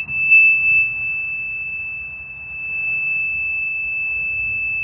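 Renogy 2000W pure sine wave inverter's built-in buzzer sounding one steady high-pitched tone as the inverter powers up.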